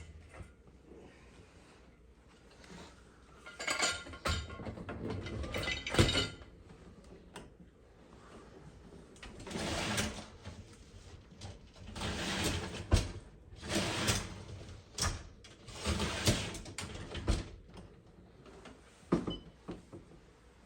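Dishwasher parts being handled and slid back into place: a series of scraping, rolling slides, each about a second long, with sharp knocks in between, the loudest about six seconds in.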